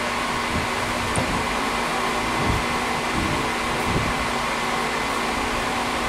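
Milling machine running with its spindle turning steadily: an even motor hum with constant whining tones.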